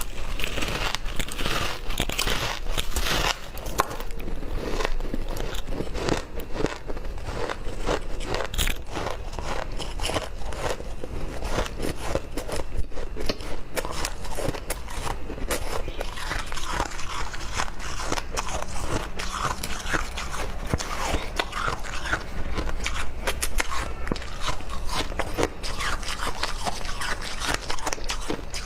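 A person biting and chewing ice: dense, continuous crunching and crackling with no pauses.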